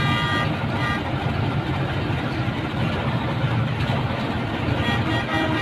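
Steady street traffic noise of engines running and vehicles passing.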